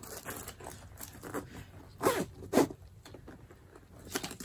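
Zipper of a Loungefly faux-leather fanny pack being unzipped, with two short louder pulls about halfway through amid soft handling rustle of the bag.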